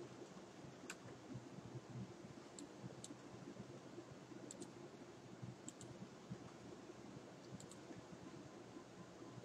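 Faint clicks of a computer mouse and keys, several of them in quick pairs, over a low steady hum of room noise.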